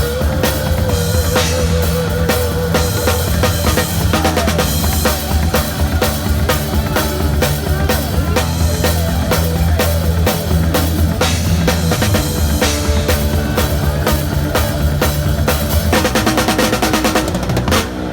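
Live drum kit played with music underneath, kick and snare strokes driving a steady beat, and a fast run of strokes near the end.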